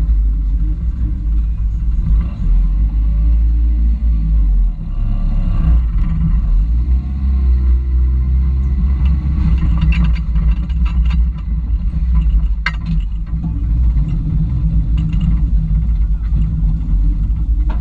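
Toyota rock crawler's engine running with a steady low rumble as the truck sits and creeps on slickrock. A few short, sharp clicks come around ten to thirteen seconds in.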